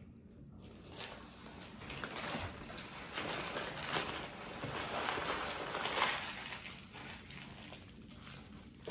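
Crunching and chewing of kettle-cooked potato chips: a dense run of crisp crackles that builds up, then fades near the end.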